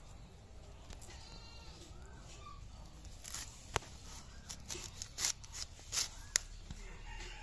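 Fresh cauliflower leaves being snapped and torn off the head by hand: a run of crisp snaps and leafy crackles in the second half, with several sharp cracks.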